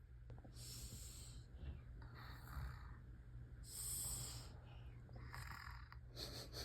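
Pretend snoring: four breathy snores about a second and a half apart, faint over a low steady hum.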